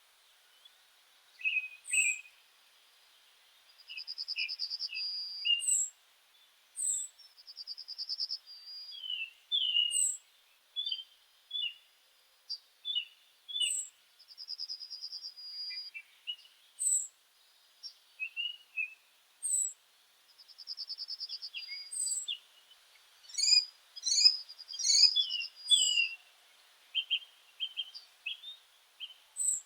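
Meadow songbirds singing: short high slurred notes every second or two, chirps, and a buzzy trill of about a second and a half that comes back roughly every six seconds. A denser burst of calls comes near the end.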